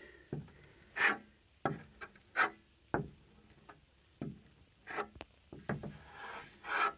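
Metal putty knife (spatula) spreading silicone caulk thinly across a solar panel's cracked vinyl backing: a series of short scraping strokes, roughly one a second.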